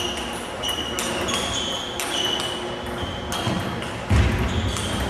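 Table tennis ball struck back and forth in a rally: quick clicks off the bats and the table, each bounce with a short ringing ping, about two or three a second. A heavy low thump about four seconds in.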